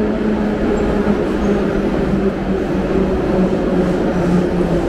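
Metro train pulling into the station alongside the platform, running loudly with a low motor hum that slowly falls in pitch as the train slows.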